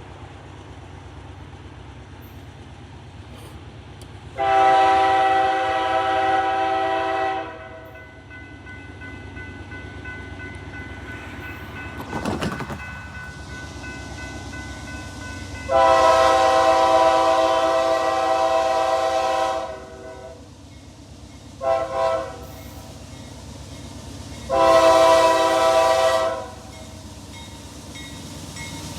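CSX freight locomotive's air horn sounding a long blast, a second long blast, two quick taps and a final long blast, the long-long-short-long pattern of a grade crossing signal, over the steady rumble of the passing freight train.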